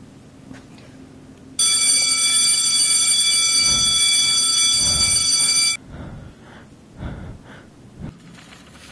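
Electric bell ringing steadily for about four seconds, starting and stopping abruptly.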